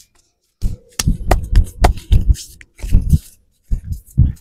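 A run of close, dull thumps and rubbing noises, then two sharper thumps near the end.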